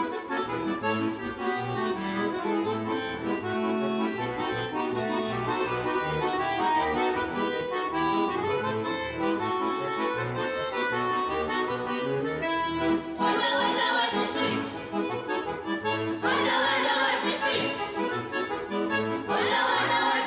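Accordion playing a Russian folk tune, with several short, brighter bursts in the last third.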